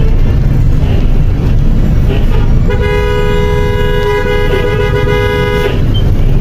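A vehicle horn held for about three seconds, a two-note blare starting a little under three seconds in and cutting off sharply, over a constant low rumble of street traffic.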